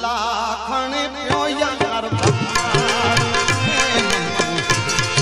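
Background music: an Indian folk-style song with a wavering melody line. About two seconds in, a hand-drum beat with bending bass strokes joins it.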